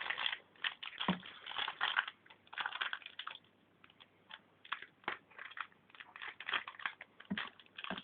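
Crinkling and rustling of a foil trading-card booster pack wrapper being handled, in irregular crackly bursts with short pauses.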